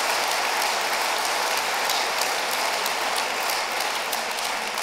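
Audience applauding: a dense mass of many hands clapping, starting to thin out and fade near the end.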